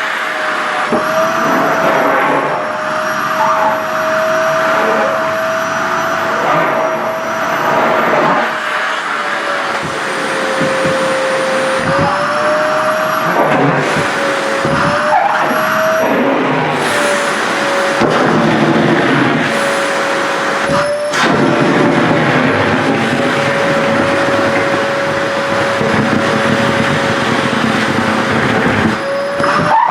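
SHARP EC-KP7F-A vacuum cleaner running, sucking at skirt fabric. Its motor whine dips and rises slightly in pitch as the airflow changes, over an uneven rush of air.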